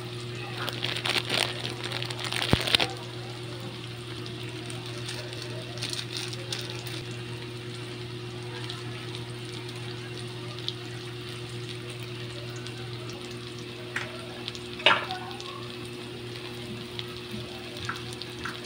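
Shallots, garlic, ginger and tomato sizzling in oil in a metal pan, over a steady low hum. A few short, sharp clatters, the loudest about two to three seconds in and near fifteen seconds.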